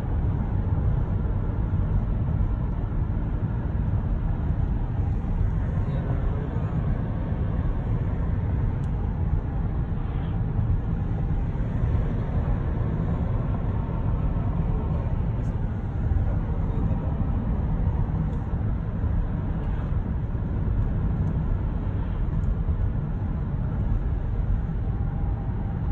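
Steady road noise inside a moving car's cabin: an even low rumble of tyres on pavement and the engine running while driving.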